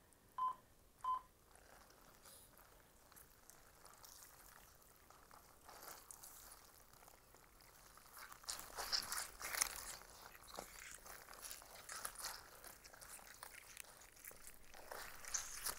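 Three short beeps about half a second apart, then wet chamois cloths and a small silicone ball squeezed and wrung by hand. The squelching is quiet at first and grows louder about eight seconds in, performed as Foley for a gory blood gush.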